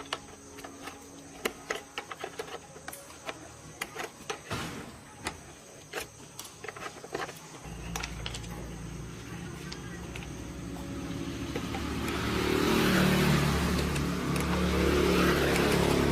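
Light clicks and knocks of metal parts being handled, then an electric motor starts about eight seconds in and runs with a steady hum that grows louder and rougher toward the end.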